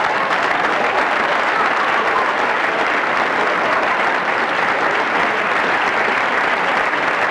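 Applause, dense and steady, cutting off sharply at the end.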